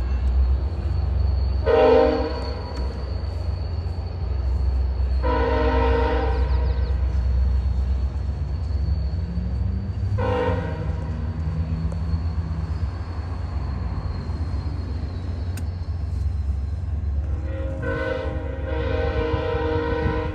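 Sounder commuter train sounding its multi-tone horn four times: a short blast, a longer one, another short one, and a long blast near the end. The train's low running rumble carries on underneath.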